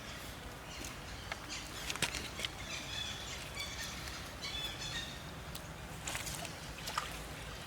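Water sloshing and splashing in irregular bursts, with a few short, high chirping calls about three to four seconds in.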